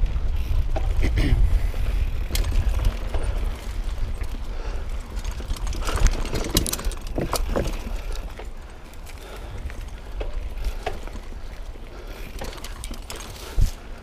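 Mountain bike riding over a rough trail of roots and rocks: wind rumble on the microphone and tyres on the dirt, with scattered clicks and rattles from the bike. There is a sharp knock about six seconds in and another near the end, and the riding gets quieter after about eight seconds.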